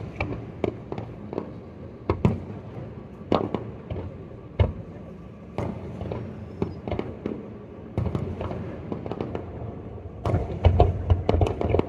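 Fireworks launched from a barge offshore: separate bangs every second or so, then a quick volley of bursts near the end.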